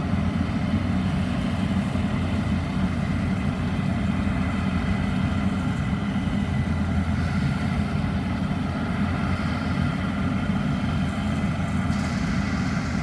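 Maxxi Bimo 102 rice combine harvester running, a steady low engine drone with a few faint higher steady tones over it.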